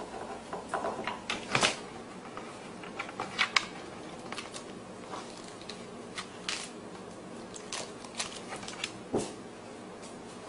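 A beagle biting and tearing into a crisp head of lettuce: irregular crunches and crackling leaves, the sharpest about a second and a half and three and a half seconds in. A dull thump near the end.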